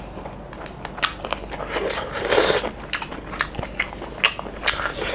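A man biting and chewing mutton curry off the bone, eaten by hand: close mouth sounds with many short sharp clicks, and a louder stretch of chewing a little over two seconds in.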